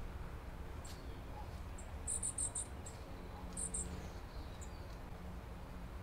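Dark-eyed juncos calling: high, thin chips in an irregular pattern, with a quick run of four about two seconds in and two more a second and a half later, while an adult feeds a begging fledgling.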